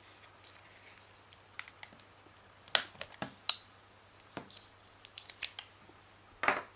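Plastic housing of a Sony Ericsson mobile phone being pried apart by hand, giving a string of small, irregular clicks and snaps.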